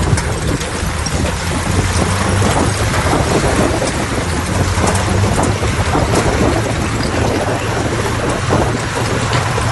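Bulldozer's diesel engine running steadily with a low drone, over a continuous clatter and grinding of steel tracks and stone as the blade pushes rock.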